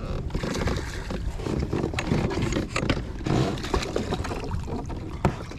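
Wind rumbling on the microphone, with splashing and knocks as a hooked smallmouth bass is fought beside the kayak and brought to the net.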